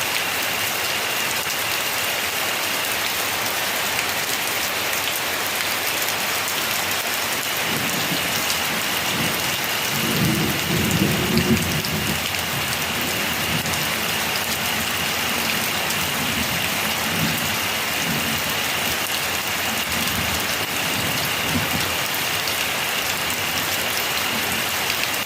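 Rain falling steadily with a hiss, and a roll of thunder that builds about eight seconds in, is loudest a few seconds later, then rumbles away over the next ten seconds.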